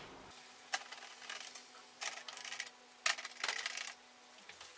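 Screwdriver turning screws into the plastic back housing of an HP TouchSmart 600 all-in-one PC: several short spells of light clicking and scraping.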